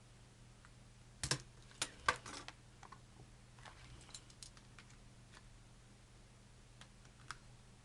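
Tough plastic blister packaging crackling and clicking as it is forced open by hand: a quick run of sharp crackles a little over a second in, then a few fainter ticks.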